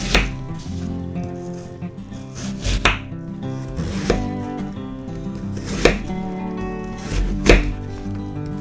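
Knife chopping on a cutting board: about five separate sharp strokes, a second or two apart, over steady background music.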